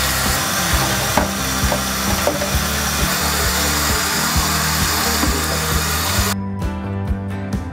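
Background music with a steady bass line and beat. For the first six seconds or so a dense rushing noise lies over it, then it cuts off sharply and the music goes on alone.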